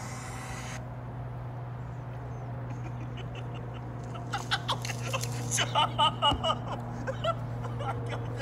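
A funny video's soundtrack playing through a laptop's speakers. A steady low hum runs under it, and from about four seconds in comes a quick run of short, high-pitched cries, loudest around six seconds.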